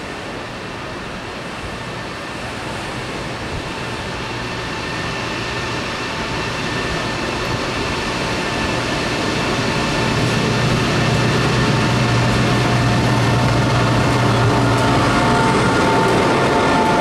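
EP20 electric locomotive hauling a passenger train, approaching and running past close by. A steady rumble carrying a few held tones grows louder all the way through as the locomotive draws level.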